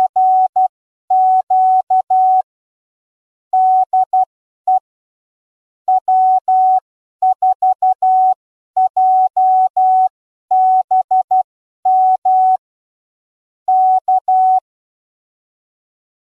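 Morse code: a single steady tone keyed on and off in short and long elements, sent in groups with pauses between characters. It stops shortly before the end.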